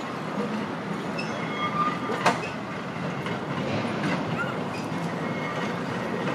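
Heritage electric tram approaching along the track, its running gear giving a steady rumble with a few brief high squeals from the wheels and a single sharp click about two seconds in.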